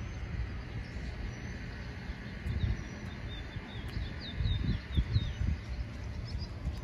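Small birds chirping, a quick series of short high calls about halfway through, over a low steady rumble of outdoor ambience.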